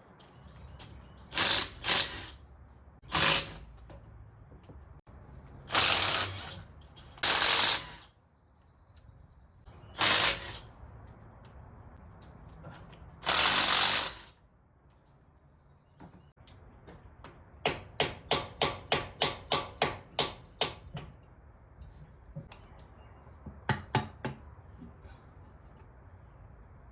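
Power impact wrench spinning out the bolts of a front differential cover in short bursts, about seven of them. The longest burst lasts about a second. Later comes a quick run of about ten sharp clicks, roughly three a second, and a few more near the end.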